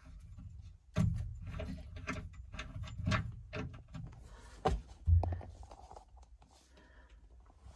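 Hands working a valve on the water-supply pipework to turn the water on: scattered clicks, knocks and metallic taps, with a few dull thumps about a second in, around three seconds and around five seconds.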